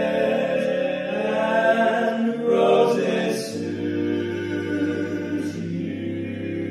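Male barbershop quartet singing a tag a cappella in close four-part harmony. About three and a half seconds in, the bass drops to a low note and the chord is held.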